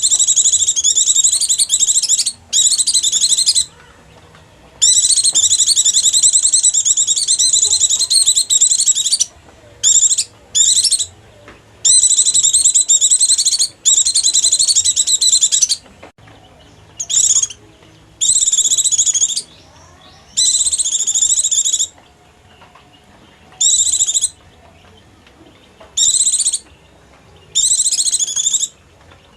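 Pleci (white-eye) twittering in fast, high chattering spells, some brief and one running about four seconds, with short pauses between: a lure call for drawing in wild white-eyes.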